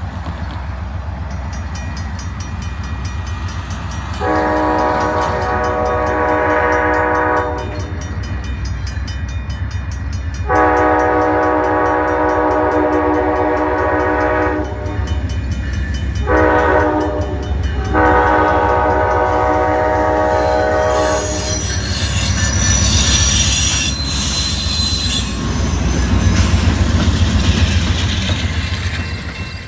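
Diesel locomotive's air horn sounding the grade-crossing signal, long, long, short, long, over the low rumble of the approaching train. After the last blast the train passes, with loud wheel and rail noise.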